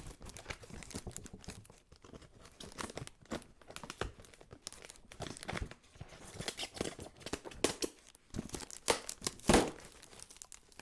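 A taped packaging box being torn and pried open by hand: irregular tearing, crinkling and crackling, with the sharpest snaps near the end.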